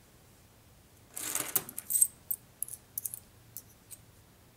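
Silver Mercury dimes being scooped up by hand from a pile on a wooden table: a jingle of coins sliding together about a second in, then a string of sharp metallic clinks as the dimes knock against each other in the hand.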